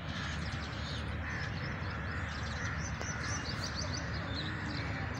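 Birds calling in the trees: a dense run of short, high chirps with a few lower calls among them, over a low steady rumble.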